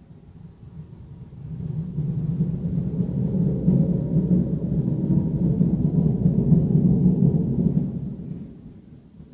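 A deep, low rumble that swells in over about two seconds, holds for several seconds, and fades away near the end. It is one of the unexplained 'strange sounds' recordings.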